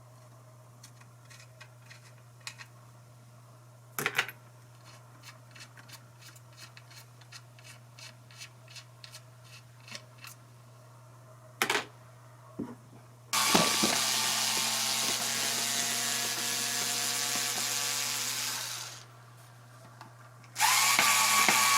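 Light clicks and taps of small parts being handled, with a couple of sharper knocks, then a power drill runs steadily for about five seconds, stops, and starts again near the end.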